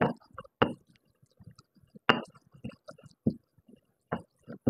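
Stone pestle (ulekan) pounding and grinding a paste of garlic, chili, kencur and spices in a stone mortar (cobek): irregular knocks, about six hard strikes with lighter taps between.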